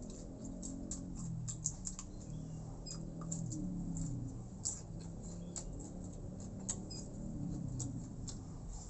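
Close-miked eating sounds: wet chewing and lip smacking, with many small irregular mouth clicks.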